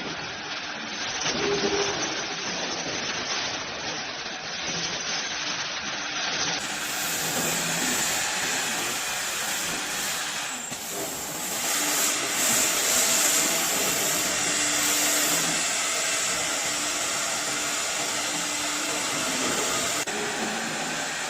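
Wood CNC router running, its spindles cutting with a steady high whine over loud hissing machine noise. The sound changes abruptly about six and a half seconds in, and again briefly near eleven seconds.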